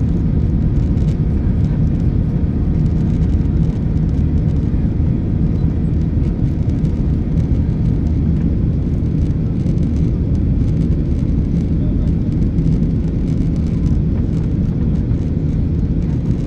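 Steady cabin noise of a Ryanair Boeing 737-800 climbing after takeoff: the even drone of its jet engines and rushing air, heaviest in the low range.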